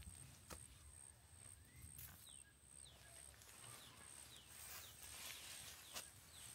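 Faint outdoor ambience: a bird gives a run of short, falling chirps through the middle, over a high, pulsing insect buzz, with a few scattered clicks.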